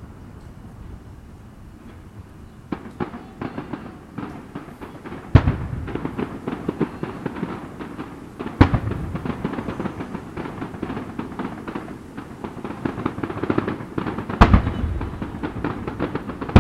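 Aerial fireworks display: after a few quiet seconds, dense crackling of bursting shells begins, broken by three loud booms.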